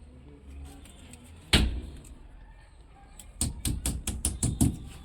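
A single loud knock about one and a half seconds in, then a quick run of about eight sharper knocks near the end.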